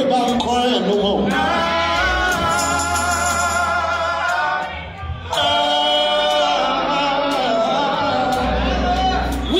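Male gospel vocal group singing live in close harmony, holding two long sustained chords with a brief break about five seconds in, over a bass guitar.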